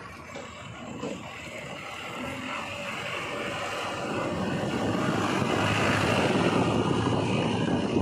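JCB 3DX backhoe loader's diesel engine running as the machine drives along, getting louder about halfway through as it comes close.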